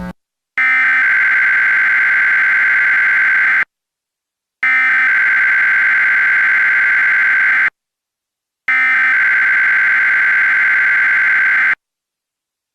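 Emergency Alert System SAME header: three identical loud bursts of high, buzzing digital data tone, each about three seconds long and a second apart. This is the coded header that opens an alert, carrying its event and location codes.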